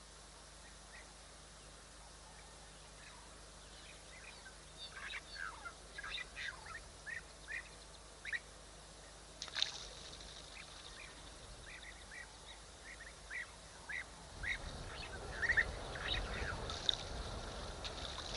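Short, high animal calls repeated in irregular runs, some dropping in pitch, starting a few seconds in. A low rumble comes in near the end.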